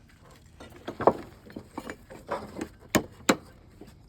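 A string of sharp, irregular knocks and taps, the loudest about a second in and two more close together near the end.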